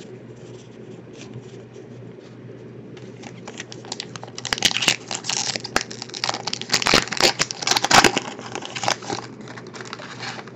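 Foil wrapper of a 2014 Topps Valor football card pack being torn open and crinkled by hand. It is quiet handling at first, then a run of sharp crackles starts about three seconds in, loudest in the middle and stopping shortly before the end.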